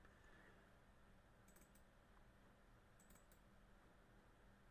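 Near silence with faint computer mouse clicks: a pair about one and a half seconds in and a quick cluster of three around three seconds in, double-clicks opening folders on the desktop.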